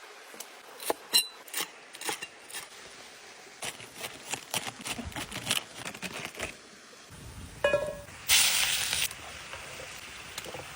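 Scattered sharp clicks and clinks in two runs, then a short loud hiss a little past eight seconds in.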